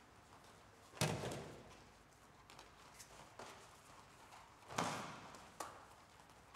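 Aikido attackers thrown onto tatami mats, landing in breakfalls: two loud thuds, about a second in and again near five seconds, each echoing in the large hall, with lighter slaps and footfalls on the mats between.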